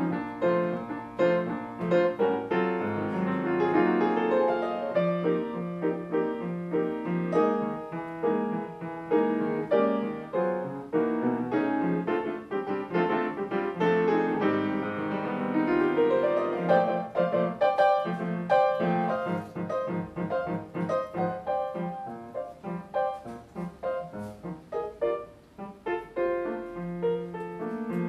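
Grand piano playing a solo passage of a slow bossa nova ballad, chords under a melody line, with no vocals. The playing grows softer about three-quarters of the way through, then picks up again.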